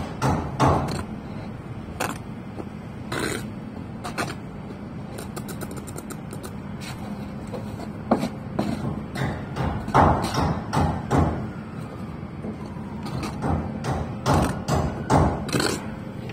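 Bricklaying work: irregular taps, knocks and scrapes of a steel trowel and bricks on wet mortar as bricks are laid and tapped down, in clusters with short pauses between.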